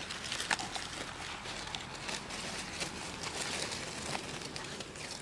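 Dry fallen leaves rustling and crackling as Thai Bangkaew puppies paw and scamper through them, with many small sharp crackles scattered throughout.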